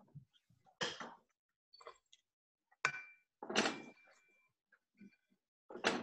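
A wooden spoon scraping and knocking against a metal saucepan while stirring thick brigadeiro mixture. It comes as several short separate scrapes and knocks, one followed by a brief metallic ring about three and a half seconds in.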